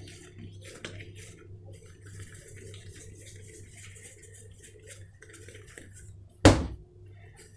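Soft handling noises of crumbly shortbread dough being shaped into a ball between the palms, over a steady low hum, with a single loud thump about six and a half seconds in.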